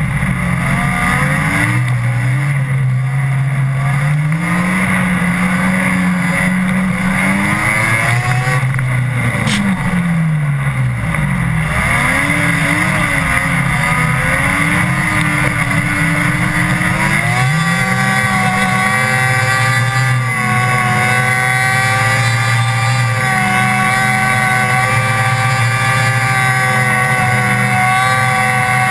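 Snowmobile engine running under load, its pitch rising and falling with the throttle through the first half, then holding a steady pitch from a little past halfway.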